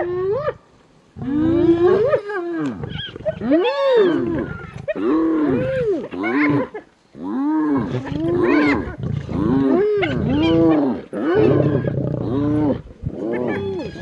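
Spotted hyenas calling in a quick, overlapping string of short whoops and groans, each rising and then falling in pitch, over a low rumble. These are the calls of hyenas mobbing a lioness on a kill and summoning the rest of the clan.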